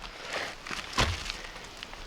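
Footsteps and rustling on the forest floor, with one heavy wooden thud about a second in: the split-log bench being set in place to be tried out.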